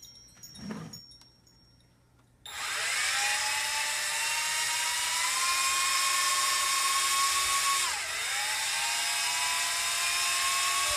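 YiZhan Tarantula X6 hexacopter's motors and propellers spinning up suddenly after a few faint clicks, then running as a steady high whine that slowly rises in pitch, dipping briefly about eight seconds in before climbing again. The new motors are being run on the ground to break them in.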